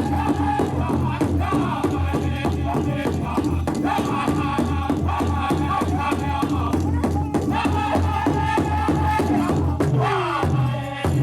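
Powwow drum group singing a fancy dance contest song: several men's high-pitched voices in unison over a steady beat on a large shared drum. Near the end the singing slides down in pitch.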